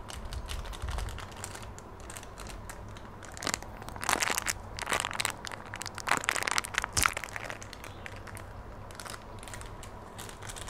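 Plastic masala sachet crinkling and rustling as it is handled and opened, with a cluster of crackly rustles between about three and a half and seven seconds in.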